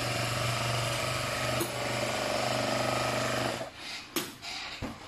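Portable single-needle, two-thread bag closing machine running steadily as it stitches across the top of a kraft paper bag, stopping abruptly about three and a half seconds in. A few short crackles and knocks of the stiff paper bag being handled follow.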